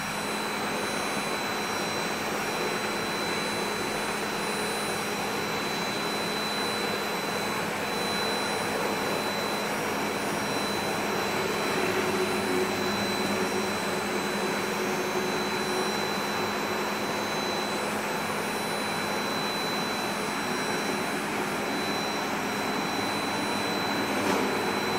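High-speed router spindle on an industrial robot arm running steadily as it mills a white foam block, a constant high whine over the hiss of the cutting.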